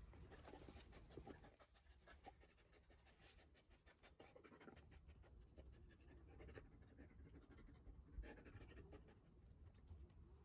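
A Belgian Malinois panting faintly in quick strokes, with sniffing as it works its nose along a stack of bricks.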